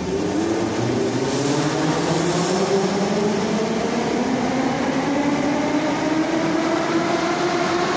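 81-717/714 'Nomernoy' metro train pulling out of a station, its traction motors whining in a steadily rising pitch as it accelerates.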